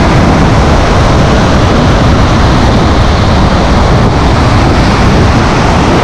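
Loud, steady storm noise: heavy surf breaking and washing up the shore, with strong wind buffeting the microphone as a dense low rumble.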